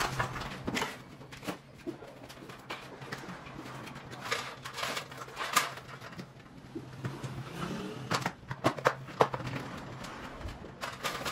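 Electrical cable being handled and pressed along the top of a wall: scattered clicks, taps and rustles, with a cluster of sharper clicks near the end. A bird cooing can be heard in the background.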